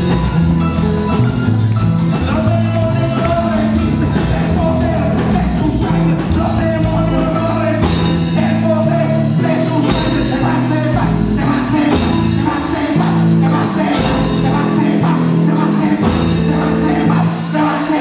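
Live church band playing a fast Pentecostal coro, with a stepping bass line, drum kit and keyboard, and handheld metal cylinder shakers rattling along. A man sings over it.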